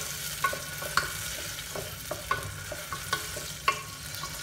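Green peas sizzling in hot oil in an aluminium pressure cooker, stirred with a wooden spoon that clacks against the pot in irregular ringing knocks over a steady hiss.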